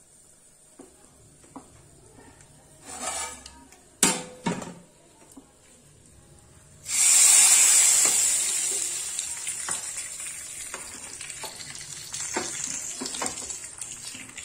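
Hot tempering oil with mustard seeds, cumin, garlic, dried red chillies, curry leaves and asafoetida poured from a small pan into a pot of sambar: a sudden loud sizzle about seven seconds in that slowly dies away. Before it, a couple of light knocks.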